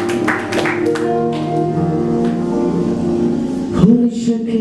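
Background worship music with sustained held chords; a man's voice comes in near the end.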